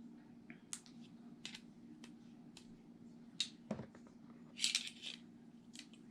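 Faint, scattered metallic clicks and taps from handling a Leatherman Surge multi-tool, about eight in all with a short cluster just before five seconds in, over a steady low hum.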